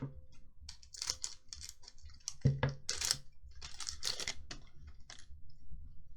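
Trading cards and a booster pack wrapper being handled, rustling and sliding in several short bursts, with a soft thump about two and a half seconds in.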